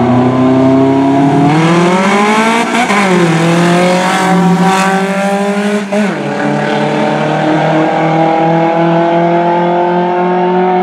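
Two cars racing at full throttle, their engines climbing in pitch under hard acceleration, with sharp drops about three and six seconds in before climbing again.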